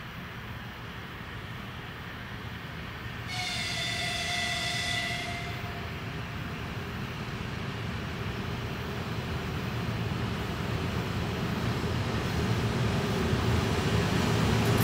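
VL15 electric freight locomotive hauling a loaded container train: one high-pitched horn blast lasting about two seconds, starting about three seconds in. Under it, the rumble of the approaching train grows steadily louder toward the end as the locomotive draws level.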